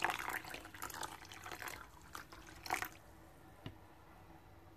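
Warm water being poured into a bowl of small tapioca pearls, a light trickling splash that stops about three seconds in. A single faint click follows.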